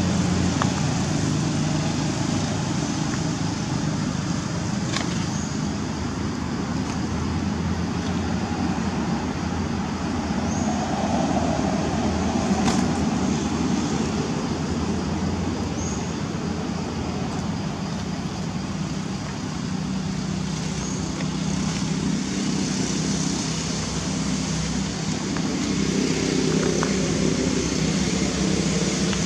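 Steady outdoor background noise: a continuous low rumble with hiss, with a few faint short high-pitched chirps scattered through it.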